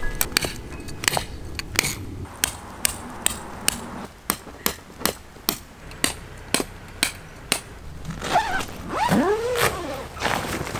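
Mallet hammering tent pegs into gravel ground in steady, evenly spaced blows, about two to three a second. The blows stop about seven and a half seconds in and are followed by a brief rising-and-falling squeak.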